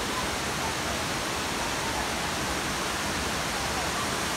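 Steady, even rush of falling water, with no breaks or changes.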